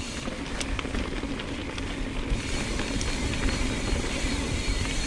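Mountain bike rolling along a dirt singletrack: steady tyre and wind rumble with small scattered clicks and rattles from the bike.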